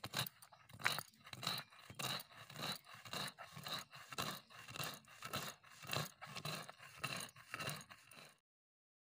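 Stone roller of a shil-nora grinding slab scraping and crunching back and forth over lumps of palm sugar candy, crushing them to powder. There are about two strokes a second, stopping shortly before the end.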